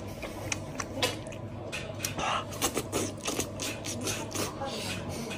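Close-up eating sounds: meat being torn from a braised bone by hand, then bitten, sucked and chewed off it, as a run of irregular wet clicks and smacks over a steady low hum.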